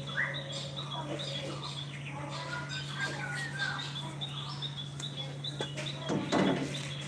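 Small birds chirping in short, scattered calls over a steady low hum, with a brief rustling noise about six seconds in.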